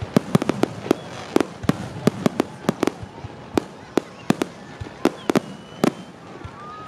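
Aerial firework shells bursting overhead: an irregular string of sharp bangs, several a second, with no let-up.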